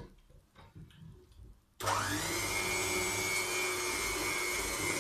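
A small high-speed electric motor switches on about two seconds in. Its whine rises quickly to a steady high pitch over a loud rushing hiss and keeps running.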